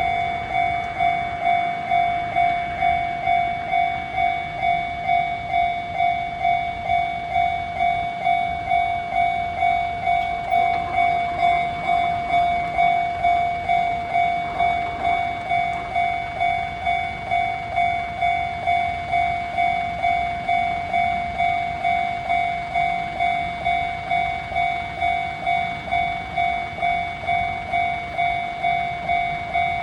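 Japanese level-crossing warning alarm ringing its repeating "kan-kan" tone, an even single-pitched strike a little under twice a second, signalling that a train is approaching and the crossing is closed.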